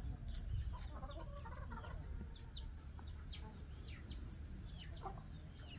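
Chickens clucking, with a string of short, falling high-pitched calls, roughly two a second.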